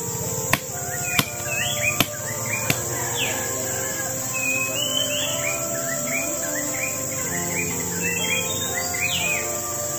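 A bush knife chopping into a rotting coconut palm trunk, four sharp strikes in the first three seconds. A steady high insect drone runs underneath, and a bird calls with a string of short rising chirps through the rest.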